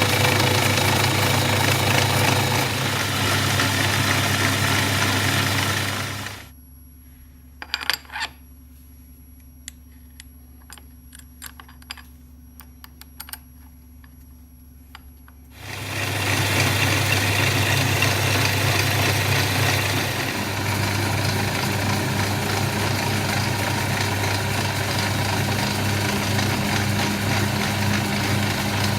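CNC milling machine running and cutting, loud and steady. About six seconds in it drops to a low hum with a few clicks for about nine seconds, then starts up again at full noise for the rest.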